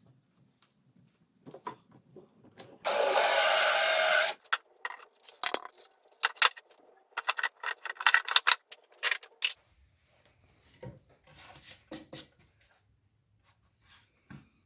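Parts and tools being handled during assembly of a homemade CNC Z axis: a run of sharp clicks and knocks. About three seconds in there is a loud, even hissing or rushing noise lasting about a second and a half.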